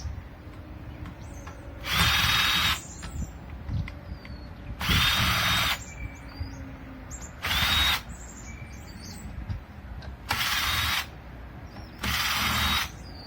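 Power drill running in five short bursts of under a second each, backing screws out of an electric motor's housing, with quieter handling noise between the bursts.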